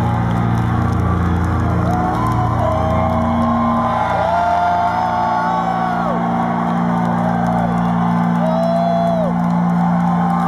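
Hard rock band playing live, electric guitars and bass holding a sustained ringing chord at the close of the song, the deepest bass dropping away about four seconds in. Voices whoop and wail over it.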